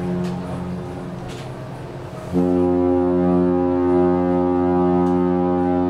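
Cruise ship's deep horn sounding long blasts. One blast dies away about a second in, and the next starts abruptly a little over two seconds in and holds steady.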